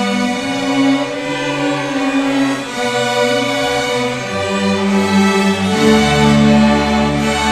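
Seventh-grade string orchestra of violins and cellos playing a piece together in sustained bowed notes. About six seconds in, a strong low bass line comes in under the melody.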